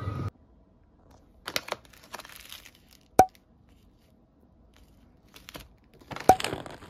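Plastic snack wrappers crinkling as they are handled: a triangle kimbap's film wrapper and a bag of shrimp chips. Two sharp clicks about three seconds apart are the loudest sounds.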